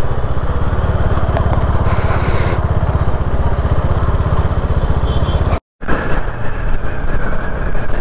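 Single-cylinder engine of a Bajaj Dominar 400 motorcycle running at low speed, with an even, rapid low beat from its firing. The sound drops out for a moment about five and a half seconds in, then the engine comes back with more road noise.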